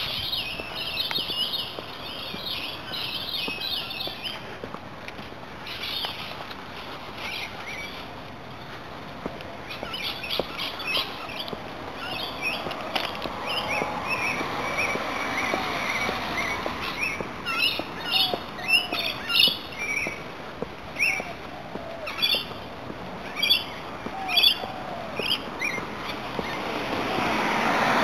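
Birds chirping, with many short, sharp calls repeated throughout and louder in the second half. A car passes about halfway through, and another approaches near the end.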